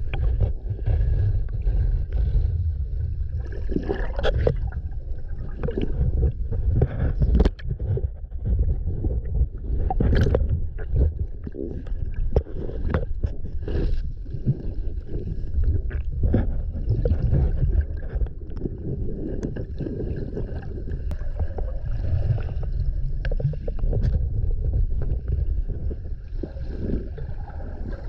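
Underwater sound from a submerged camera: a continuous muffled low rumble of moving water with gurgling and scattered sharp clicks and taps throughout.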